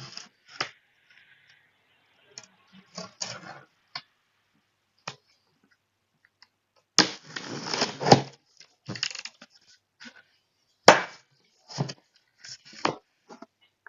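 Cardboard box being opened and its contents unpacked: scattered knocks, clicks and crackles of cardboard and packaging, a longer rustling stretch about seven seconds in, and a sharp crack about eleven seconds in.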